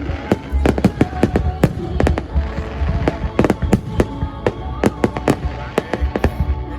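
Fireworks display: a dense, irregular run of sharp bangs, several a second, over a steady low rumble.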